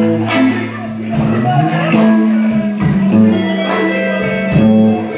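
Live blues band playing a slow number: electric guitars, bass guitar and drums, with drum hits landing a little under once a second.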